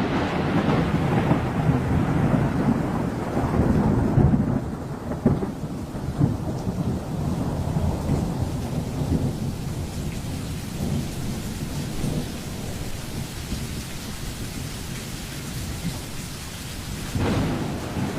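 Thunder rumbling over steady rain. The rumble is heaviest for the first few seconds, dies down, and builds again near the end.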